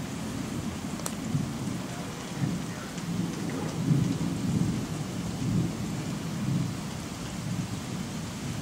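Distant thunder rolling low, swelling about two seconds in, loudest around the middle, then fading, over a steady hiss of rain. A single sharp click about a second in.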